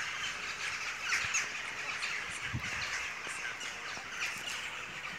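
A flock of many birds calling at once, a dense, steady chorus of overlapping short calls.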